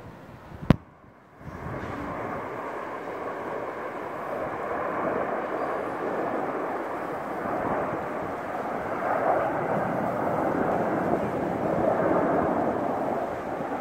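Engine noise from a formation of display jets passing overhead, heard as a broad rumble that swells slowly and is loudest near the end. There is a single sharp click about a second in.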